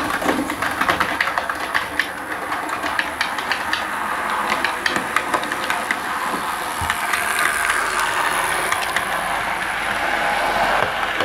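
Model train, a locomotive hauling coaches, running on the layout's track: wheels clicking over the rail joints over a steady running noise, growing a little louder as it comes close.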